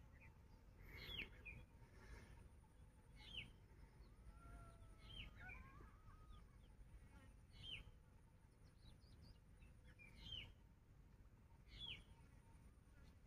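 Faint bird calls: a short, high, falling chirp repeated about every two seconds, about six times, with a few softer gliding notes in between near the middle.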